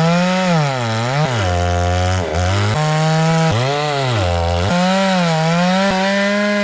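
Chainsaw running hard while ripping boards from a log; its engine pitch drops sharply twice as it bogs under the cut, then recovers.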